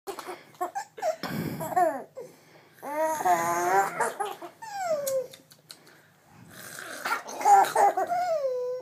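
Baby laughing in several bursts while being tickled, some bursts trailing off in long falling notes.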